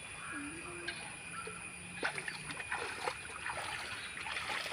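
Shallow stream water splashing and trickling faintly as hands and feet move through it, with a few small splashes.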